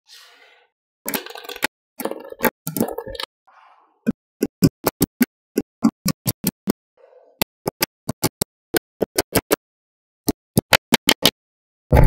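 Small magnetic metal balls clicking as they snap together. First a clatter of many balls knocking against each other, then from about four seconds in a run of sharp single clicks, about three or four a second.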